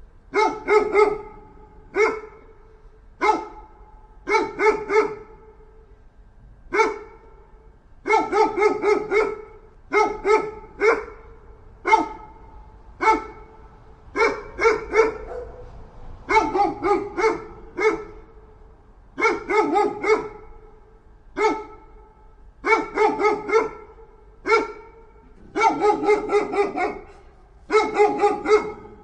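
A dog barking aggressively in short volleys of two to four loud barks, with brief pauses between volleys, as an angry dog does.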